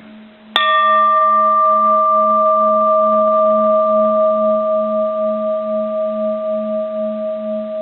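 Bronze Japanese Buddhist temple bell tapped once lightly with a hard, uncushioned striker about half a second in. It rings on with a steady, slowly fading tone over a pulsing low hum, and its bright high overtones die away within a second or so.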